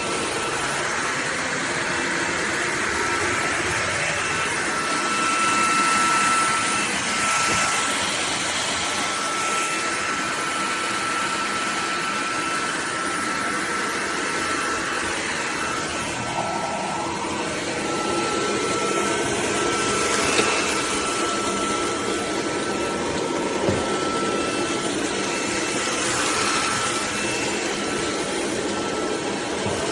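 Cordless stick vacuum running steadily, a whooshing motor noise with a high whine, swelling a little louder now and then as it is worked over the floor.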